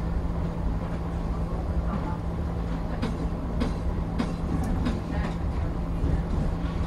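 P865 electric light rail car running along jointed track, heard from inside its cab: a steady low hum with a run of sharp clicks about twice a second as the wheels cross rail joints.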